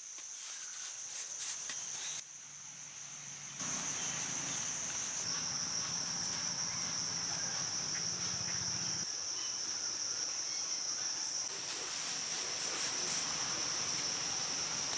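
A steady, high-pitched chorus of crickets or similar insects trilling without a break, with a second, higher insect tone joining briefly a little past the middle and a few faint taps. The background shifts abruptly several times.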